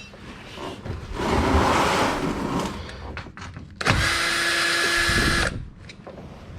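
Cordless drill-driver spinning fasteners out of the car's underbody panels: a stretch of rattling and clattering, then about four seconds in a steady motor whine that runs for about a second and a half and stops.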